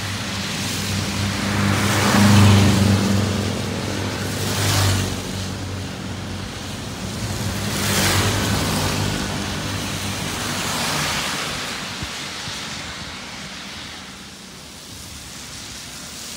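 Traffic passing one vehicle at a time on a rain-wet road: tyres hissing on the wet tarmac, with engine hum, swelling and fading with each pass. The loudest pass comes about two seconds in, and a motorcycle goes by close around eight seconds in. The sound eases off after that and rises again near the end as a van approaches.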